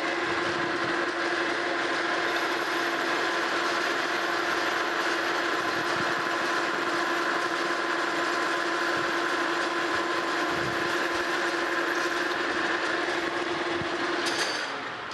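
Monarch Model K metal lathe taking a cleanup cut with a carbide insert on the steel flange of a table saw arbor, removing runout: a steady, even-pitched machining sound that holds throughout. Near the end a click sounds and the cutting noise drops away as the tool clears the work, leaving the lathe spinning more quietly.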